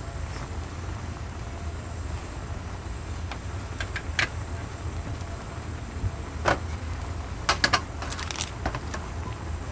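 A steady low rumble with scattered sharp clinks and clacks: one about four seconds in, one about six and a half seconds in, and a quick run of three about seven and a half seconds in.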